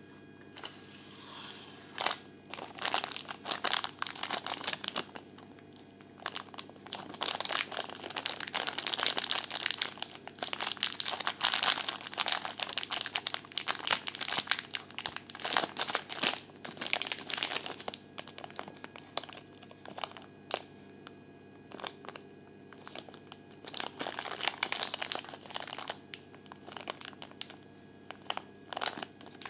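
Thin clear plastic toy bag crinkling and crackling as fingers work it open. The crackling is irregular, with a couple of brief lulls.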